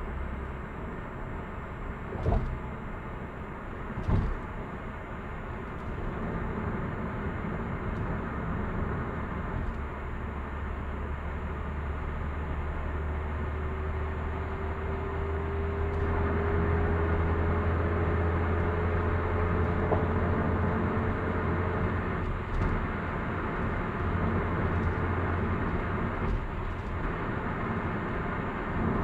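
Steady engine and tyre noise inside the cabin of a Hyundai Avante AD (Elantra) with a manual gearbox, cruising on an expressway. Two short knocks come about two and four seconds in. Through the middle a faint whine rises slowly in pitch as the noise grows louder.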